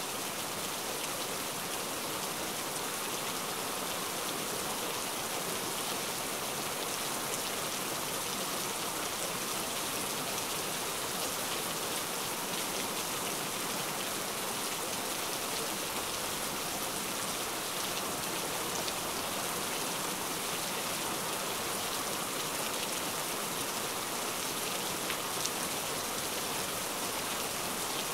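Heavy rain falling steadily, a dense even hiss of drops striking surfaces without let-up.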